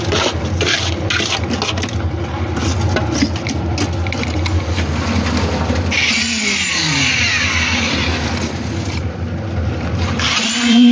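A steady engine hum with scrapes and clinks over it. About six seconds in, a hiss rises and the engine's pitch falls over a second or two.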